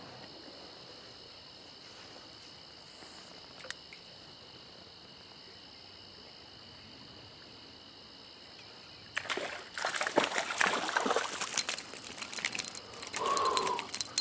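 Faint steady trickle of stream water. About nine seconds in, a run of louder irregular splashing and clattering starts, made up of many short sharp clicks.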